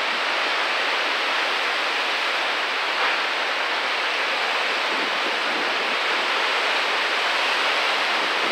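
Hurricane downpour: heavy rain pouring steadily, an even rushing hiss.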